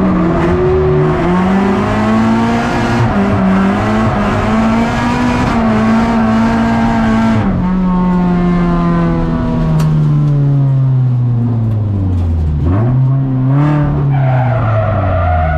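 Subaru BRZ drift car's engine held at high revs through a drift with the tyres screeching, heard from inside the cabin. About seven seconds in, the screech stops and the revs fall away steadily, with a short throttle blip near the end before the engine settles low.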